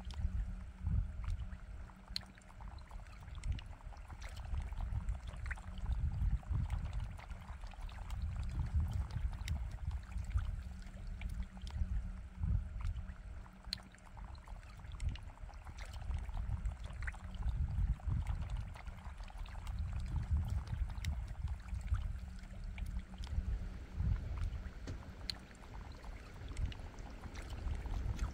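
Outdoor ambience on the water: uneven, gusty wind rumbling on the microphone, with faint water sounds and small scattered ticks.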